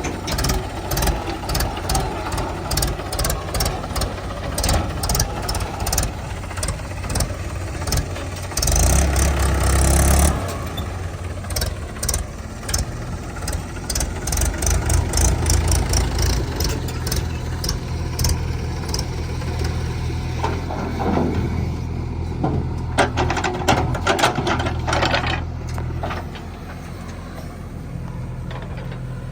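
Diesel engines of a backhoe loader and tractor running, with repeated knocks and clanks throughout. The engine surges loudly for about a second and a half around nine seconds in, then settles into a steady low drone.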